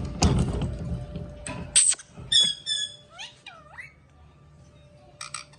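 African grey parrot calling: a harsh noisy burst in the first second and a half, then a sharp high whistle, two short chirped whistle notes and whistles that slide up and down. A few quick clicks near the end.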